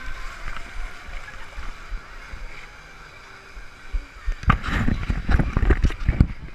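Water running and sloshing in a water slide's runout, heard close up, then from about four and a half seconds a quick run of loud knocks and thumps from the camera being handled and jostled.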